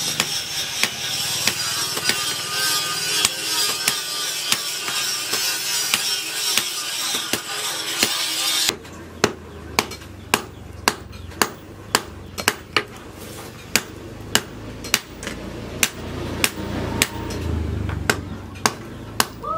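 Hand hammer beating a red-hot steel cleaver blade on a steel post anvil, sharp ringing blows in a steady rhythm of a little under two a second. For the first half a loud hiss lies under the blows and stops abruptly about nine seconds in.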